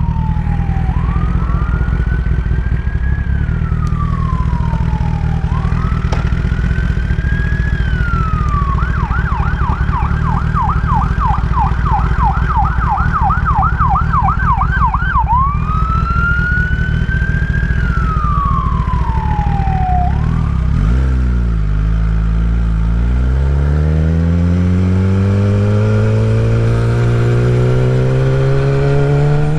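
An emergency-vehicle siren in a slow rising-and-falling wail, switching to a fast yelp of about three sweeps a second for some six seconds in the middle, then back to the wail, over the steady idle of a 2016 Kawasaki ZX-10R's inline-four through a Graves full titanium race exhaust. The siren stops about 20 seconds in, and the bike pulls away, its engine note rising steadily as it accelerates.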